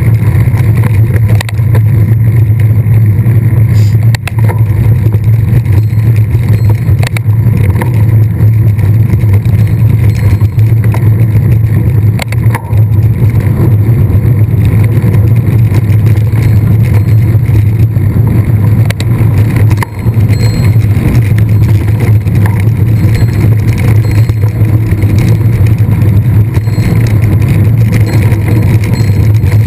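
Loud, steady low rumble of a mountain bike ride picked up by a camera microphone carried on the bike or rider, with a few sharp knocks along the way.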